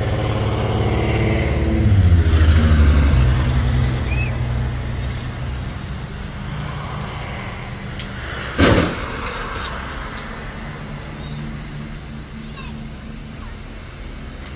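A car engine runs loudly, its pitch swinging about two to four seconds in, then settles into a steady lower hum; a single sharp bang sounds about nine seconds in.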